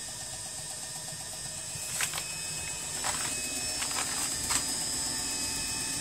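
Steady running noise of an Eberspacher D9W diesel hydronic heater in operation, with a handful of sharp, irregular clicks from about two seconds in to past the middle.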